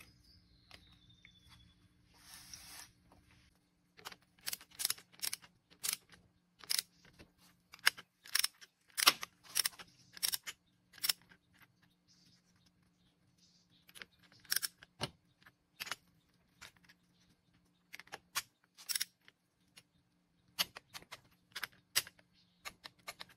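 Sharp metallic clicks and clinks in irregular runs, from hand tools and bolts being worked while the cover is fitted and bolted onto a John Deere hydraulic pump housing. A short hiss about two seconds in.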